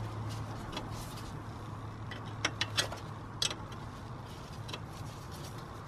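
A few sharp, light metallic clicks, a quick cluster of three and then one more about half a second later, as a spanner is worked on the strut-to-hub camber bolt, over a steady low hum.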